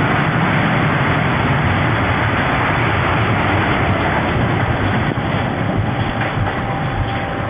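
Roller coaster train running along its track: a loud, steady rumble.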